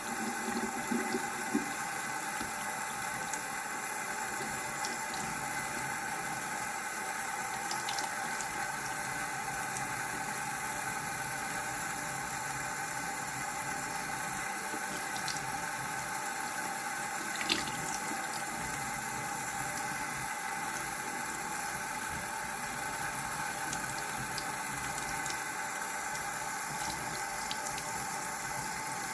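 Water running steadily from a tap into a sink, with a few faint clicks, the clearest a little past halfway.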